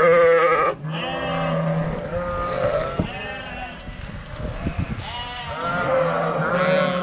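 A flock of sheep on the move, many animals bleating over one another in wavering calls, loudest in the first second.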